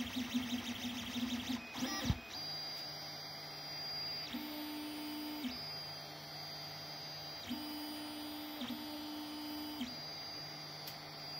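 Anet ET4+ 3D printer printing: its stepper motors whine in steady tones that jump between a lower and a higher pitch every second or so as the print head changes moves. The first two seconds are a quick, rapid pulsing of short moves, with a click about two seconds in.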